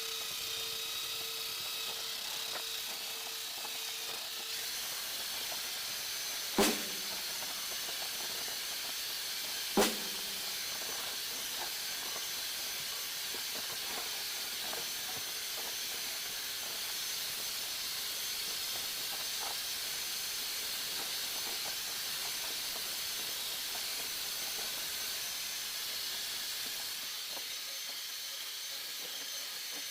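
Power drill running steadily as it scrubs rust off screwdriver bits with Bar Keepers Friend: a continuous hiss with a faint high whine. Two sharp knocks land about three seconds apart in the first third.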